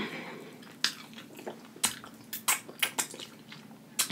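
Fried chicken wings being pulled apart by hand and chewed close to the microphone: a string of about eight sharp, separate crunches of the crisp breading.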